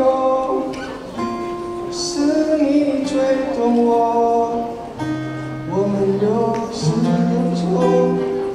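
A solo singer performing a slow Mandarin ballad into a microphone, with long held sung notes over strummed acoustic guitar.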